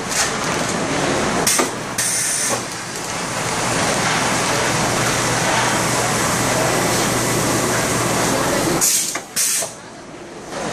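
Schause CA-1000 vacuum packaging machine running through a modified-atmosphere packing cycle, with a dense steady noise and a low hum in the middle stretch. Short, sharp bursts of air hiss come about two seconds in and again near the end, and after the last one it goes briefly quieter.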